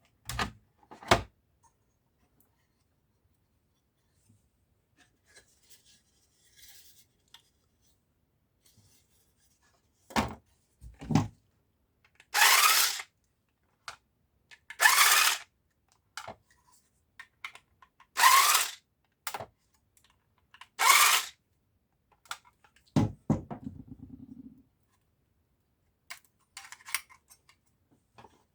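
Laptop parts being handled during disassembly: a few sharp clicks and knocks, then four short scraping strokes about three seconds apart, and a knock followed by a brief low buzz near the end.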